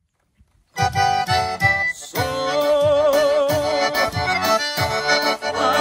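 Accordion music starting about a second in, held wavering notes over a steady beat.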